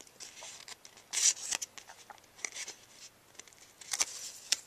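Cardstock being handled and adhesive pressed onto it by hand: short dry papery rasps and light ticks, the loudest rasp about a second in.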